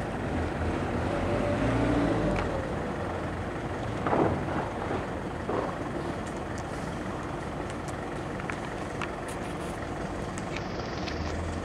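Truck-mounted foldable aerial work platform running, its carrier truck's engine turning steadily while the hydraulic boom moves. A brief whine comes about a second in, and two short sharper sounds come about four and five and a half seconds in.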